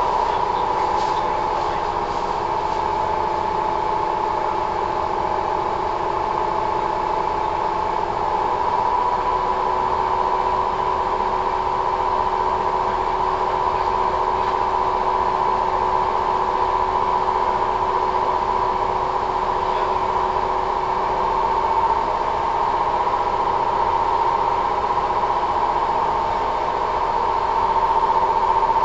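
Kintetsu 1000 series electric train standing at a station: its onboard electrical equipment gives a steady hum of several held tones, heard from inside the car, with slight shifts in pitch now and then.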